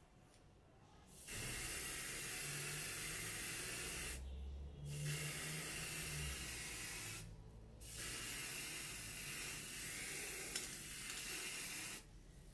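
Aerosol spray paint can spraying in three long hissing bursts, with two brief pauses about four and seven seconds in, then cutting off sharply near the end.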